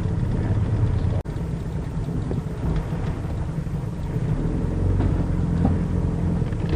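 Johnson 40 hp VRO outboard motor running with a steady low drone, cutting out for an instant about a second in.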